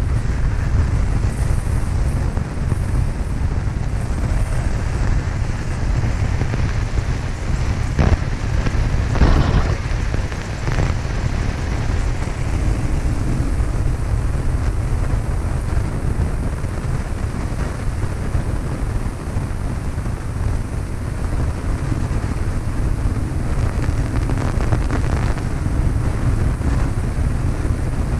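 Steady drone of a Cessna 152's four-cylinder Lycoming engine and propeller heard inside the small cabin, heavy in the low end, with wind rushing over the microphone. A few short louder knocks or crackles come about eight to eleven seconds in.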